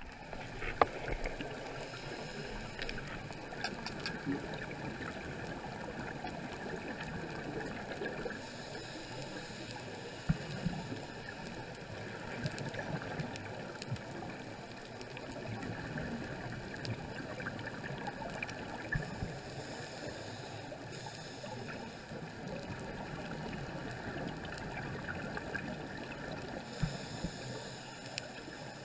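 Underwater ambience on a coral reef dive: a steady muffled water noise with scattered sharp clicks, and a brighter hiss that swells and fades a few times.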